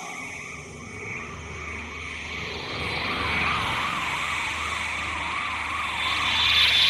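Sci-fi UFO sound effect: an electronic tone warbling up and down about three times a second over a steady low hum and a high shimmer, swelling louder near the end.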